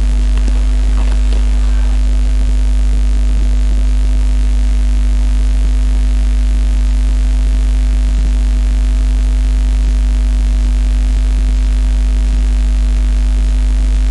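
Loud, steady electrical mains hum with a low buzz, unchanging throughout, and a few faint rustles in the first couple of seconds.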